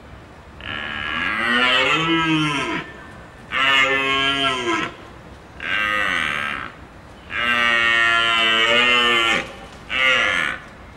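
Five drawn-out, moo-like bellowing calls from a large hoofed animal, one after another with short pauses between them, the pitch of each call bending up and then down.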